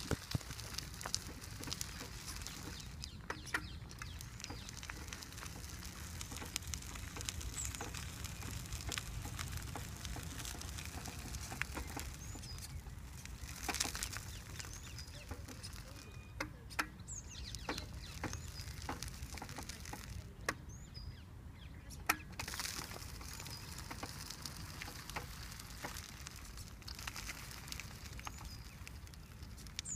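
Gravel crunching and popping under a power wheelchair's tyres as it rolls along a path, irregular sharp crackles over a steady low rumble. A few faint bird chirps come through.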